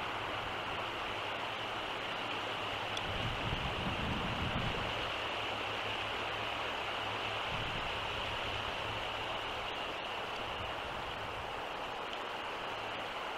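Steady outdoor background hiss, with a brief low rumble about three to five seconds in.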